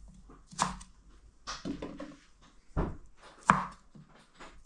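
Kitchen knife slicing raw asparagus spears at an angle on a wooden cutting board: four cuts, irregularly spaced, each ending in a knock of the blade on the board.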